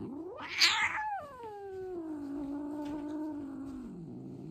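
Scottish Fold cat giving a harsh rising cry, then one long yowl that drops in pitch and is held low for about three seconds: an angry protest at being restrained for a claw trim.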